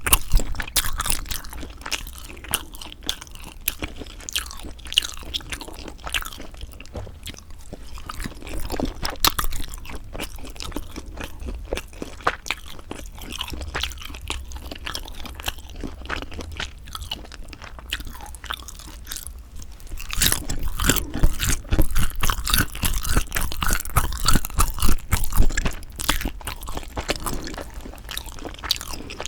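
Close-miked chewing and biting of sundae, Korean blood sausage: a steady run of wet mouth clicks and smacks, getting busier and louder about two-thirds of the way through.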